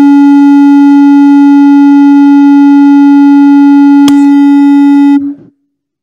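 Public-address microphone feedback: one very loud, steady tone held at a single pitch with overtones. There is a sharp click about four seconds in as the microphone is handled, and the tone cuts off a second later.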